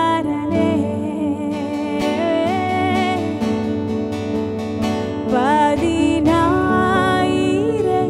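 A woman singing a slow Malayalam worship song to her own acoustic guitar, her voice sliding between notes in the phrases near the end.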